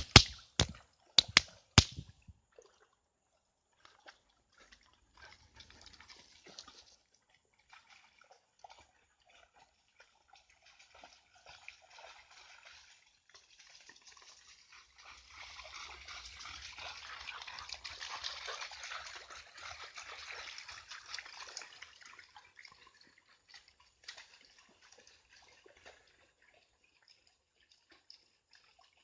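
Water sloshing and splashing, swelling for several seconds in the middle, with a few sharp knocks in the first two seconds.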